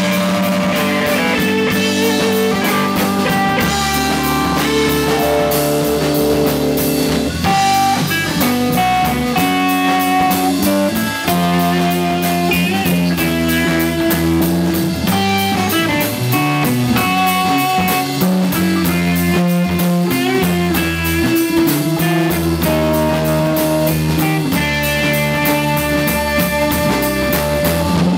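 Live instrumental blues-rock jam: electric guitar to the fore over a drum kit, electric bass and a Nord Electro 3 keyboard, with sustained notes moving in a melodic line.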